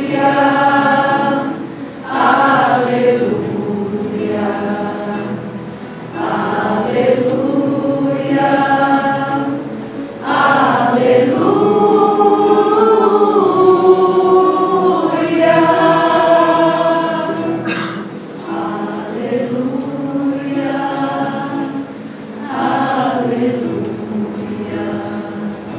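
Small mixed choir of women's and a man's voices singing together, in phrases a few seconds long with short breaks between them.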